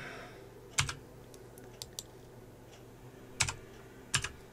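Computer keyboard keys pressed a few separate times, three firmer presses and some lighter clicks between them, over a faint steady hum.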